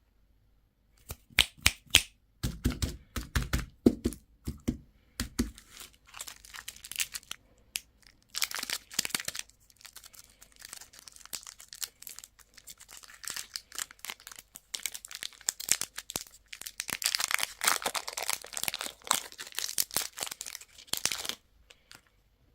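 Plastic and foil candy and toy packaging being handled, torn open and crinkled. Sharp clicks and snaps come first, then stretches of crinkling, the longest near the end.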